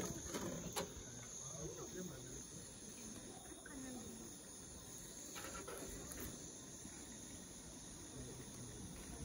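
Crickets chirping steadily in the night air, with a few soft clicks and knocks in the first second.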